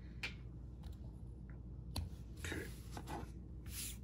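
Faint rustles and a few light taps of cardboard trading cards being handled.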